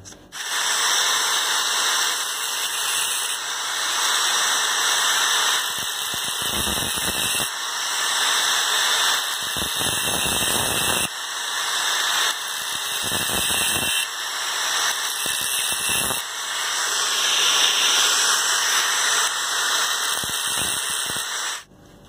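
Handheld angle grinder with a thin cutting disc running and cutting a groove around the copper shell of an old refrigerator filter drier: a continuous high-pitched grind that rises and falls in level several times as the disc bites. It stops about a second before the end.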